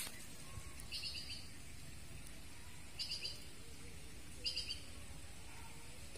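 A bird calling three times, each call a short burst of quick high notes, spaced about a second and a half to two seconds apart, over faint steady outdoor background noise.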